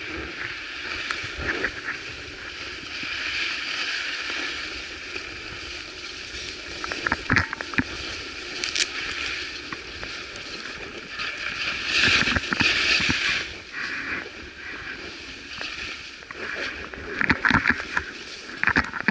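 Skis scraping and hissing over packed, tracked-up piste snow during a downhill run, growing louder in several surges as the skier turns, with scattered clicks.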